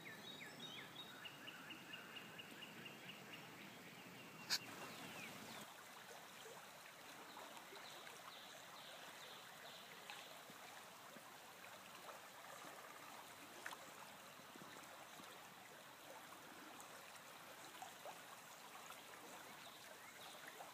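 Faint creekside ambience: a quiet trickle of stream water and a bird's short trill in the first couple of seconds. A single sharp click comes about four and a half seconds in.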